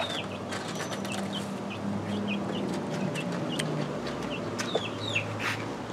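Chickens clucking low and steadily, with short high chirps scattered throughout.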